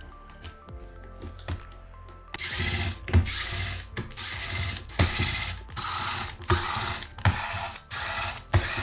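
Small electric screwdriver running in short repeated bursts, each about half a second to a second long, backing out the screws that hold a laptop battery. Before the bursts start there are a few faint clicks of small parts being handled.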